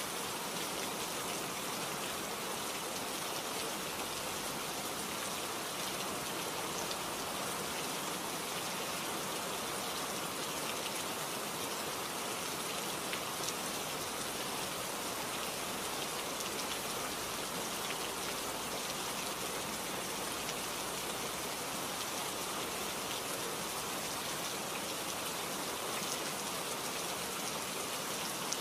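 Steady rain, an even hiss with faint scattered pattering.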